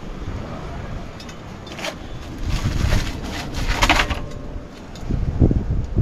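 Low, gusty rumble of wind on the microphone, with indistinct voices of people talking in the background, loudest about halfway through.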